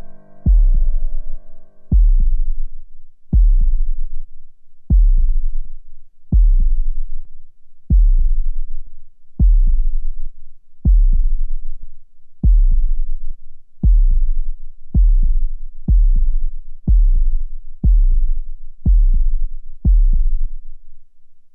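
Film score: a held synthesizer chord dies away in the first two seconds, leaving a deep bass thud repeating in a steady pulse. The pulse quickens from about every second and a half to about once a second, then stops abruptly.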